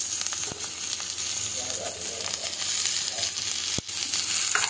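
Diced potatoes and spices frying in hot mustard oil in an aluminium kadhai: a steady sizzle with scattered crackles and one sharp pop near the end.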